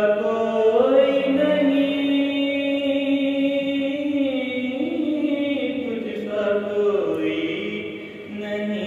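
Solo unaccompanied male voice chanting a melodic devotional recitation into a microphone, holding long notes that slide slowly between pitches, with a short break for breath near the end.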